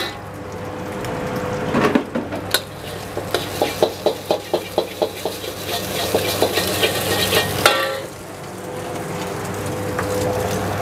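Metal spatula scraping and tapping against a wok during stir-frying, with the food sizzling; a quick run of taps, about four a second, comes in the middle, over a steady low hum.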